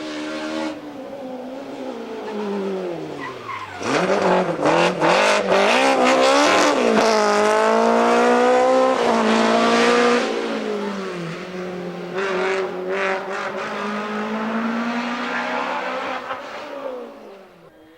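Rally car engine: its pitch drops as the car slows for a corner, then it revs up hard through the gears at full throttle, with several sharp pops. It then settles and fades away as the car drives off.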